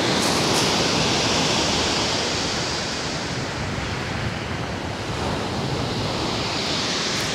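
Rough storm surf breaking and washing on a shingle beach, with wind; the wash swells in the first second or two and slowly falls away.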